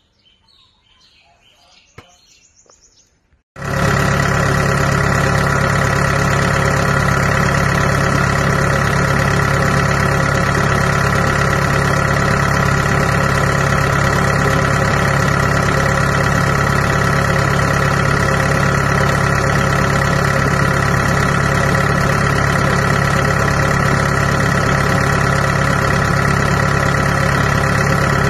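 Kubota DC70 combine harvester's diesel engine running steadily, cutting in abruptly about three and a half seconds in after a few seconds of faint birdsong.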